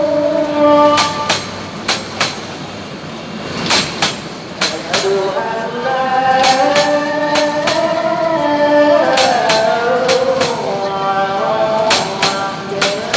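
A train passing over a level crossing, its wheels clacking over the rail joints in irregular knocks. A melody of held notes that step up and down plays over it.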